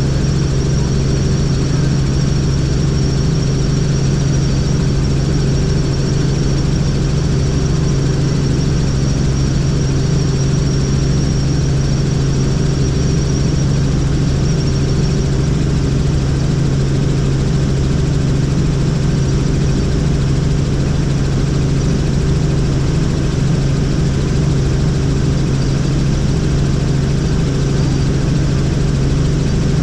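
Helicopter running steadily: a constant low drone of rotor and engine, with a thin high whine that fades out about halfway through.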